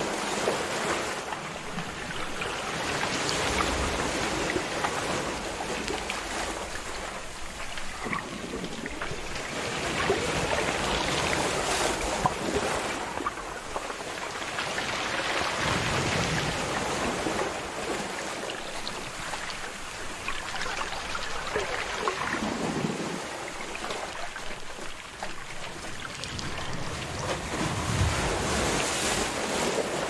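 Sea surf washing over shoreline rocks, a steady rush of water that swells and falls back every few seconds as the waves come in.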